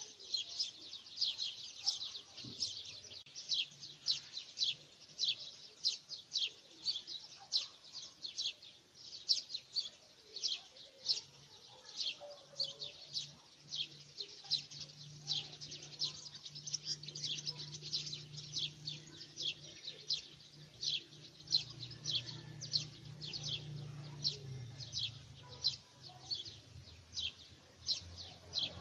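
A small bird chirping over and over: short, high chirps that fall in pitch, about two a second, with a faint low hum underneath partway through.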